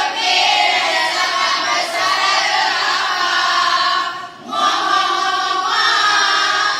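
A group of women singing together, with a brief break about four seconds in before they carry on.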